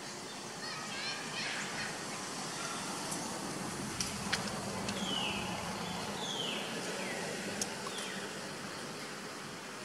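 Outdoor ambience with a steady hiss and short animal chirps: a quick ticking call early, then three brief chirps sliding down in pitch in the middle, along with a few sharp clicks.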